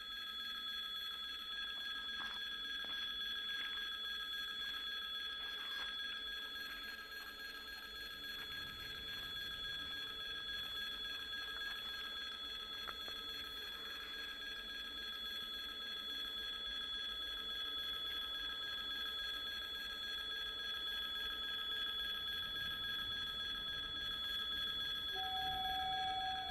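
2TE116 diesel locomotive approaching from a distance with a freight train, its low engine rumble slowly growing louder, over several steady high ringing tones. Near the end a new steady tone starts and holds.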